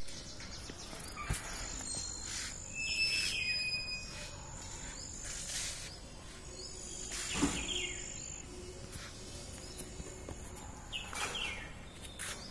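Several birds calling: thin high whistled notes, some held for a second or more, and short falling chirps, over a steady outdoor background hiss.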